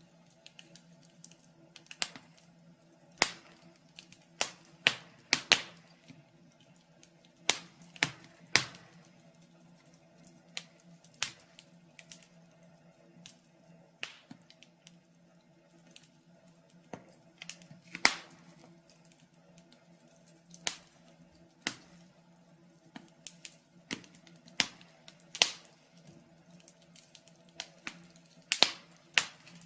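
Wood fire in a fireplace crackling, with sharp pops at irregular intervals, some much louder than the rest, over a faint steady low hum.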